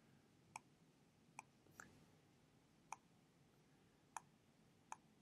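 Faint, sharp computer mouse clicks, about six of them at irregular intervals, over near silence.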